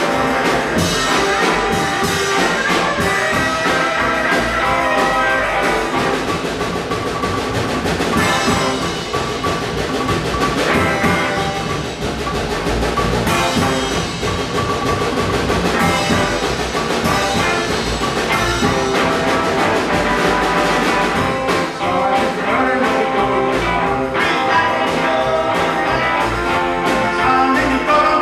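Live band playing rock and roll on electric guitars, upright bass and drums.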